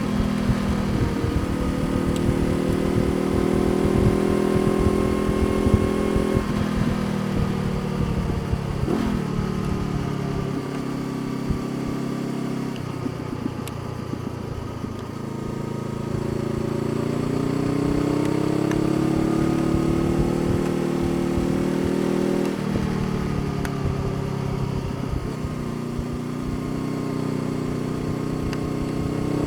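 Honda CBR500R parallel-twin engine running while riding. Its pitch holds, drops in sudden steps several times as it shifts gear, and climbs through the middle of the stretch as the bike accelerates.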